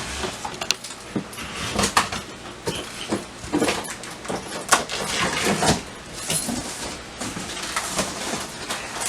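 A shipping package being handled and worked open by hand: irregular scrapes, rustles and sharp knocks and clicks throughout.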